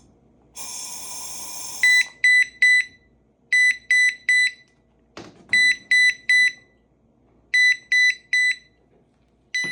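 A short hiss of released gas, then a combination CO and flammable-gas detector goes into alarm: shrill electronic beeps in groups of three, a group about every two seconds. This is the sign that it has sensed flammable gas. A brief knock comes about halfway through.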